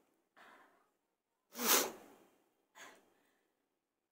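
A woman's breathing, with one loud, hissing breath out about two seconds in and softer breaths before and after it. She is trying to bring on sneezes by tickling the inside of her nose with a cotton bud.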